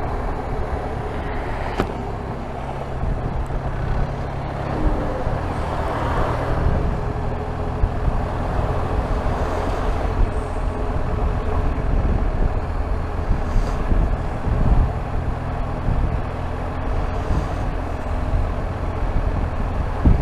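BMW R1250 RT's boxer-twin engine running at low speed in slow traffic, under steady wind and road noise.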